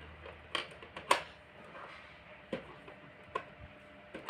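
Plastic toy kitchen pieces being handled and set down: about five sharp clicks and knocks, the loudest about a second in.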